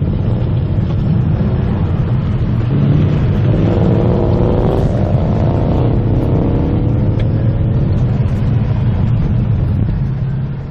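The 5.0-litre V8 of a 2019 Ford Mustang Bullitt running while the car is driven, a steady low rumble with tyre and road noise. About six seconds in, the engine note rises as the car accelerates.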